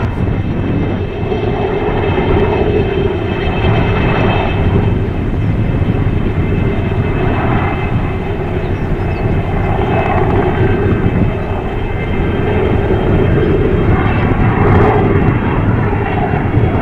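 Alouette III helicopter in flight: the steady high whine of its Turbomeca Artouste turboshaft over the fast chop of its rotor, loud and swelling gently every couple of seconds as it moves.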